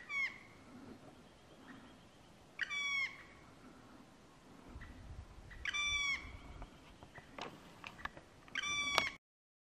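Black woodpecker calling: four short, loud calls about three seconds apart, each sliding quickly down in pitch and then held briefly on one note. A couple of short knocks come near the end.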